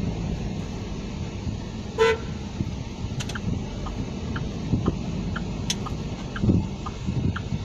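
A car horn toots once, briefly, about two seconds in, over the steady low rumble of a Hummer H3's five-cylinder engine and tyres heard from inside the cabin as it drives slowly.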